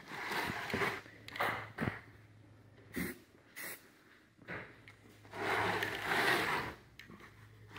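Aerosol spray-paint can hissing in several short bursts, with a longer burst about five seconds in, as thin coats of paint are sprayed on.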